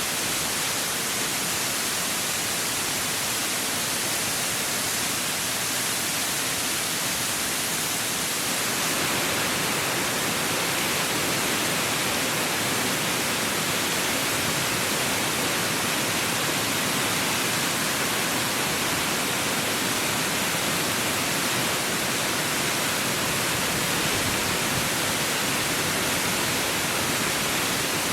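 Mountain waterfall, the Maiden's Braids falls, with falling water making a steady, loud rush. About eight seconds in the rush turns slightly louder and fuller.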